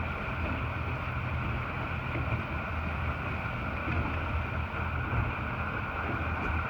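Motorboat engine running steadily, a constant low hum with a steady higher whine over it.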